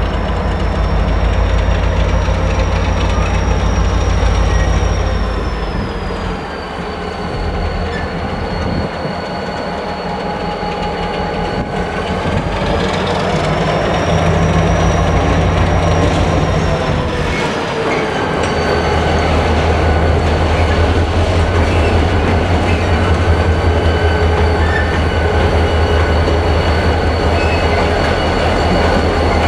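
A lashup of four diesel locomotives running light, a Pacific National L class leading three Alco-engined 48 class units, passing close by. The engines make a strong low drone that eases and swells again twice. Over it sits a steady high whine that drops in pitch, climbs back, then drops again.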